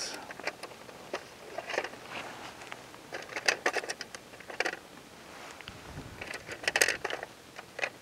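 Paintbrushes being handled and rummaged through in search of a smaller brush: scattered light clicks and rustles, coming in small clusters.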